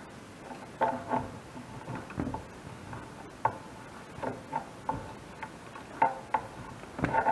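A metal hand tool prying and scraping old rope gasket out of the channel of a metal wood-furnace door: irregular light taps and scrapes, some with a short metallic ring.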